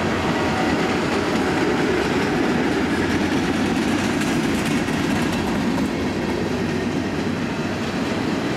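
Freight train cars rolling past: a steady rumble of steel wheels on the rails.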